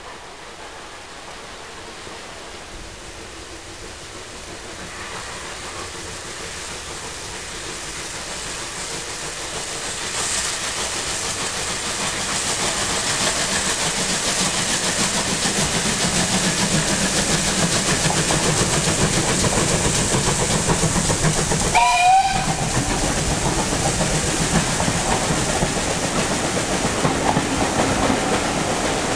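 Steam train double-headed by USA class No. 65 and GWR 57XX pannier tank No. 7715 approaching, its sound growing steadily louder as it nears. About three-quarters of the way through, one short locomotive whistle with a wavering pitch sounds. Near the end the passenger coaches rumble past with wheel clickety-clack.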